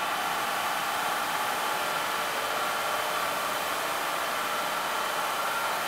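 Steady, even whoosh of a workshop ventilation fan, with a faint hum and no change in speed.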